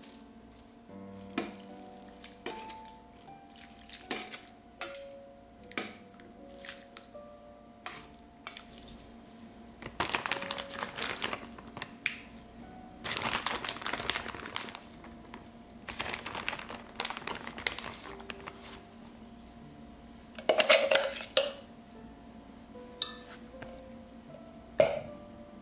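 Kitchen dishes and utensils being handled: scattered clinks and knocks, and several longer handling noises of a second or two, the loudest about three-quarters of the way through. Light background music plays under it.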